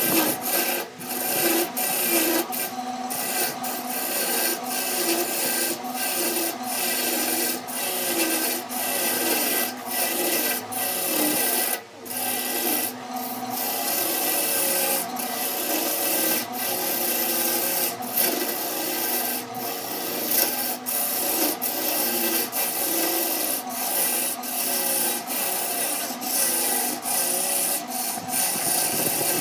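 Wood lathe running with a steady motor hum while a hand-held turning tool scrapes and cuts the spinning glued-up wooden vessel blank, a continuous rasping that pulses in short even waves and breaks off briefly about twelve seconds in.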